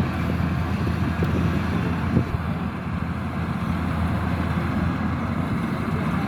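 Kubota DC-108X combine harvester's diesel engine running steadily, with a short knock about two seconds in.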